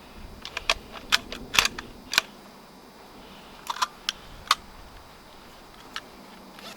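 A gun being loaded by hand: a quick run of sharp metallic clicks and clacks, a few more about four seconds in, and a single click near the end.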